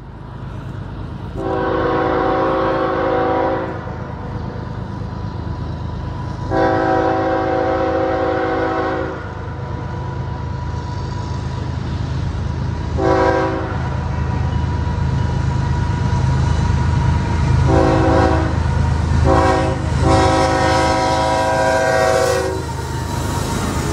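BNSF diesel locomotive's multi-note horn sounding the grade-crossing signal as it approaches: two long blasts, a short one, a couple of quick short toots and a final long blast. Under it the low rumble of the locomotive's diesel engine and the train grows louder as it nears the crossing.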